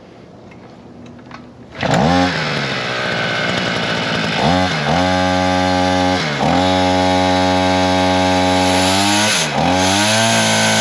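Two-stroke engine of a chainsaw-driven brush cutter spinning its chain on a first test run. It comes up to speed about two seconds in and runs fast. Its pitch dips and climbs back three times.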